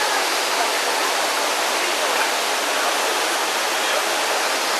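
Steady, even rush of falling water from a waterfall in a mountain river gorge.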